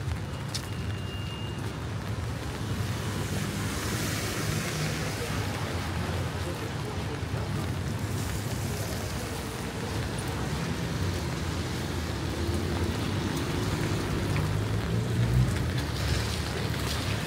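Wind buffeting the microphone in a low rumble over city traffic on rain-soaked streets, with the hiss of car tyres on wet road swelling about four seconds in and again near the end.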